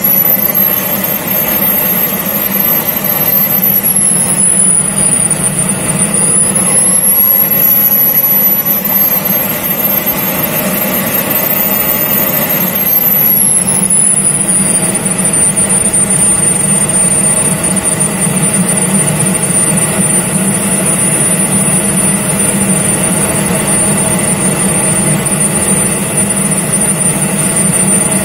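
Jet engines of a radio-controlled Mibo A-10 model aircraft, heard from under its belly while it taxis: a loud high whine that falls, rises and falls again with the throttle over the first half, then holds at a steady pitch, over a steady low rumble.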